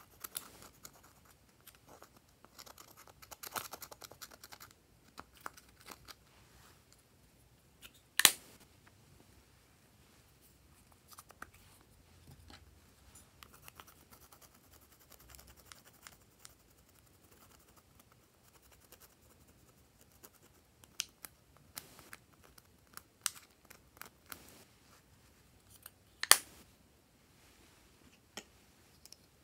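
Pressed pink makeup powder being scraped and crumbled out of a plastic compact with the thin handle of a small toy racket: soft scratchy scraping and small ticks, with two sharp clicks, about 8 seconds in and near the end.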